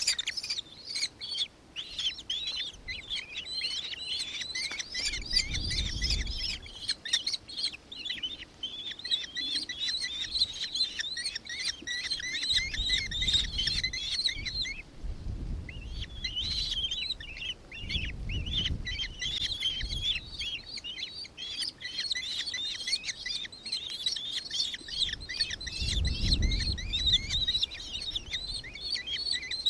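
Dense, continuous chirping of many birds calling over one another, with a short break about halfway through. A few low rumbles come and go underneath.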